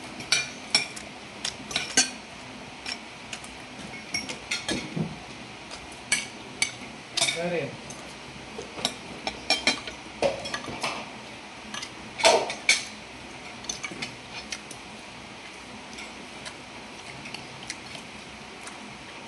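A metal spoon and fork clink and scrape against a ceramic plate during eating, in quick irregular clusters of clicks. The clinks thin out to a few scattered taps after about fourteen seconds.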